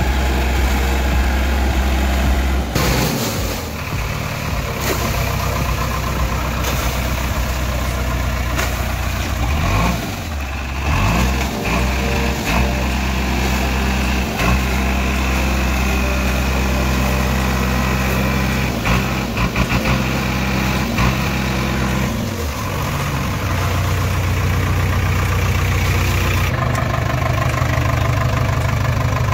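A JCB backhoe loader's engine running at idle, steady and loud, its pitch shifting several times.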